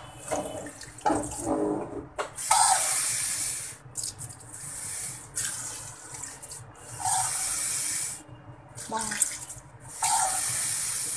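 Kitchen tap running into a plastic cup in about four stretches of a second or two each. Between the fills, water is tipped and splashes into a stainless steel sink.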